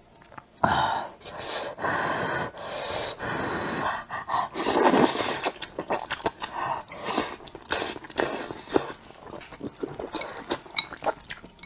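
A person slurping up a mouthful of thick, saucy rice noodles in long noisy draws over the first few seconds, then chewing with small clicking mouth sounds.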